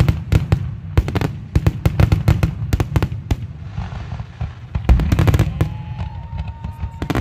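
Fireworks show barrage: a rapid string of shell bursts and bangs over a continuous deep rumble. It eases off in a short lull about halfway, then another cluster of bangs follows.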